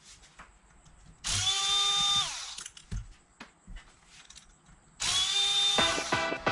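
Handheld electric power tool, such as a drill/driver, run in two bursts of about a second each, its motor whine falling as it spins down after each, with a few light knocks in between; screws being driven out during carburettor disassembly.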